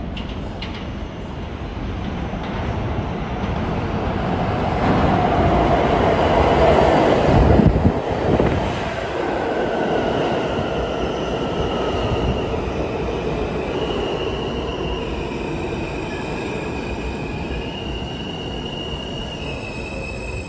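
R160 New York City subway train pulling into an underground station platform. Its rumble builds to a peak about eight seconds in as the cars pass, then high squealing tones that step in pitch as it slows to a stop.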